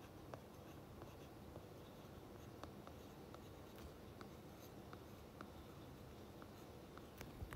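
Faint ticks and light scratching of a stylus tip on a tablet's glass screen as words are handwritten, over a near-silent room.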